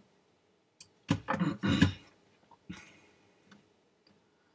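Computer mouse clicks close to the microphone: a single click, then a quick loud cluster of clicks about a second in, and a softer click and rustle near the middle.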